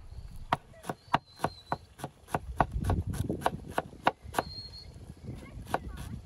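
A broad hammered-steel chef's knife chopping fresh herbs on a wooden cutting board: a quick run of sharp knocks, about three a second, with a short pause near the end.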